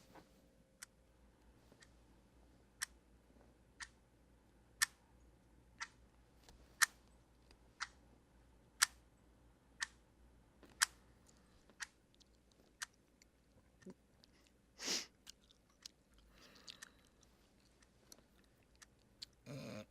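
Quiet Foley track of a library scene: sharp ticks spaced about once a second, like a wall clock, with a brief louder rustle about 15 seconds in.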